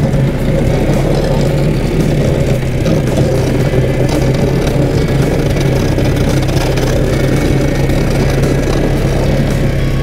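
2018 Polaris Sportsman 450 H.O. ATV's single-cylinder engine running steadily under load as the quad pushes snow with a front plow blade, over a constant hiss.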